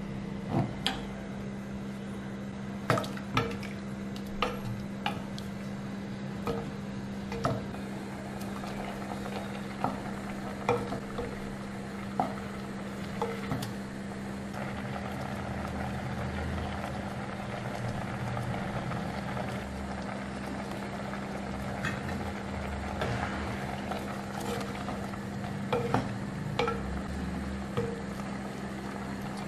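Wooden spatula stirring whole mangoes in a clay pot of simmering curry, knocking sharply against the pot at irregular moments, over a steady bubbling simmer and a low steady hum.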